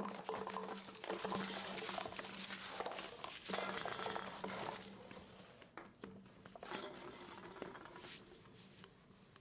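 Crinkling, rustling noise over a steady low hum, fading away over the last few seconds.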